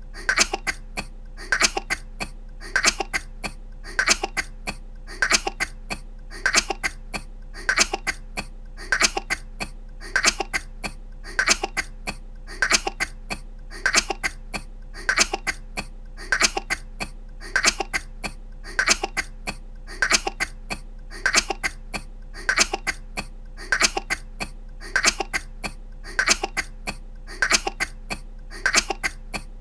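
A woman's short coughs, a quick cluster of a few coughs repeating at even intervals about every 1.2 seconds as an unbroken loop, over a faint steady low hum.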